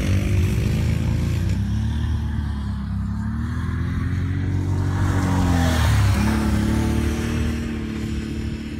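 ATV engine running, its pitch rising and falling as the quad speeds up and slows down, over a heavy low rumble.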